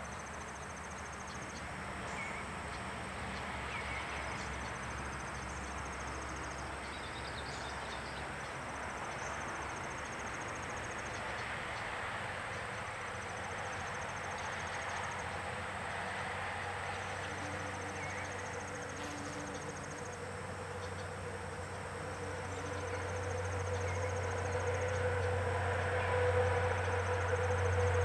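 Outdoor yard ambience with a steady rushing background and a high, dry trill that repeats every few seconds. Over the last few seconds a low engine hum grows louder as a vehicle approaches.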